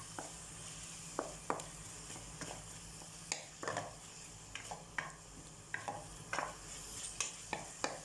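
Bagoong (shrimp paste) being sautéed with garlic and tomato in a pan: a steady sizzle with irregular scrapes and knocks of the spatula against the pan as it is stirred.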